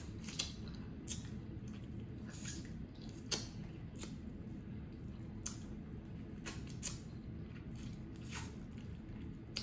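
Close-up eating of snow crab legs: scattered wet clicks, smacks and small cracks as the meat is sucked and pulled from the shell and chewed, with a few sharper ticks.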